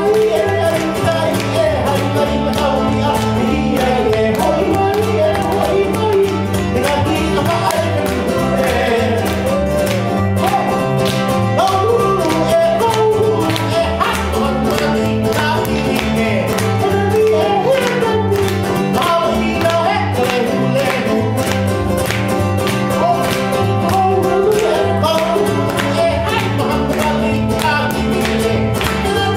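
Live Hawaiian band music: a man singing over strummed ukulele and plucked upright double bass.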